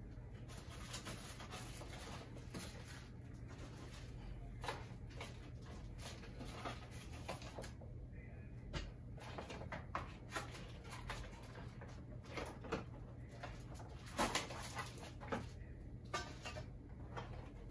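A cardboard box being unpacked by hand: rustling of packaging and paper with scattered clicks and knocks, a cluster of louder knocks about 14 seconds in, over a steady low hum.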